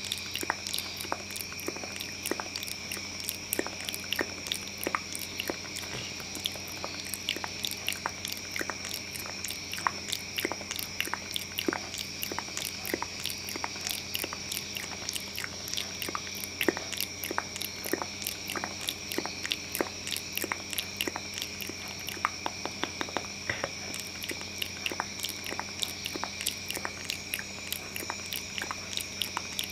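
Close-miked ASMR mouth sounds: rapid, irregular wet clicks and smacks, several a second, over a faint steady hum and high whine.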